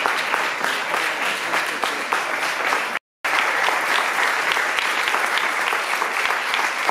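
Sustained applause from a room full of people, a dense even patter of many hands clapping. The sound drops out completely for a split second about three seconds in.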